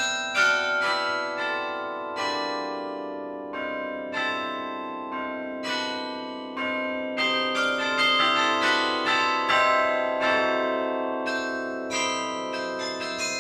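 The carillon of St. Rombout's Tower, played from its baton keyboard: a melody of struck bell notes over lower bells that ring on and overlap. The notes come sparsely for a few seconds, then quickly and thickly in a busy passage.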